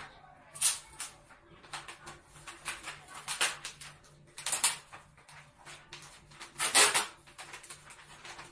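Sheets of stiff wrapping paper rustling and crackling as they are folded and handled, in a series of short crinkles, the loudest about 7 seconds in.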